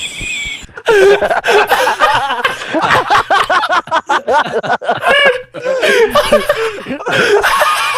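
A person's wheezing laughter: breathless, high-pitched squealing laughs in quick bursts, starting about a second in.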